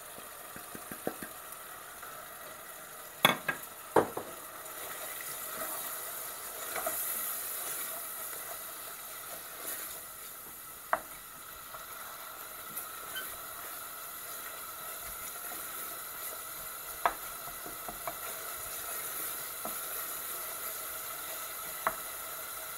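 Onion-tomato masala sizzling steadily in a stainless steel saucepan as the spices fry, stirred with a wooden spoon that knocks sharply against the pan several times.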